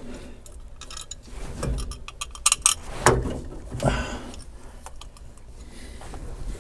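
Hands handling wiring and metal parts behind a truck's dashboard: a run of small clicks, ticks and rattles, with a couple of louder knocks about three and four seconds in.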